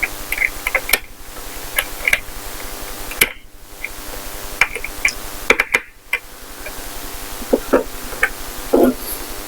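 Small metal clicks and knocks of a vintage cabinet door lock being worked with its key, the bolt drawn in and tried again, over a steady background hum.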